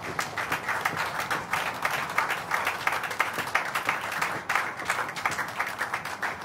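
A roomful of people applauding, many hands clapping densely at once; the applause breaks out right at the start and keeps going.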